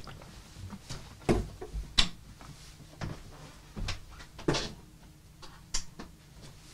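A handful of separate knocks and clicks a second or so apart as studio lights are switched off and handled in a small room.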